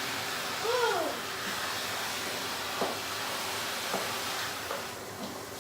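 Kitchen sink sprayer running, a steady hiss of spraying water that eases off near the end. A brief rising-and-falling vocal sound comes about a second in.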